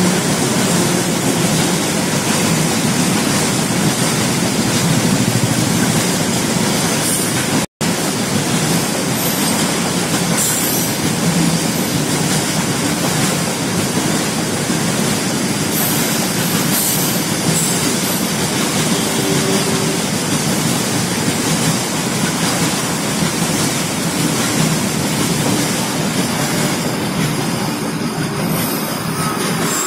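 Loaded goods train of tarpaulin-covered wagons rolling past, a steady, loud rumble and rattle of wheels on rail.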